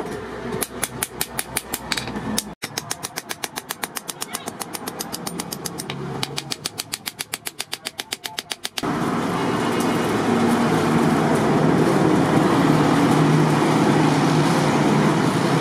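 Hand hammer striking a steel knife blade on an anvil in rapid, even light blows, about five a second, with a brief break about two and a half seconds in. At about nine seconds the hammering stops and a louder steady motor noise takes over.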